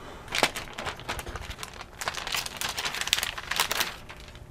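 Small clicks and rattles of a laptop memory stick being handled at its slot: one sharp click about half a second in, then a dense run of clicking and crinkling from about two to four seconds in.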